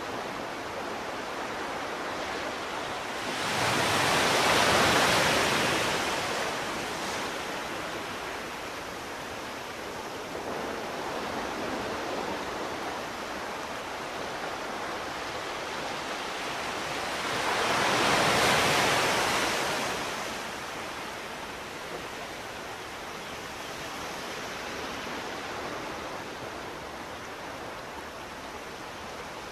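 Sea waves breaking on a shore over a steady wash of surf: two waves swell up and break, one about four seconds in and another about eighteen seconds in, each rising and falling over a few seconds.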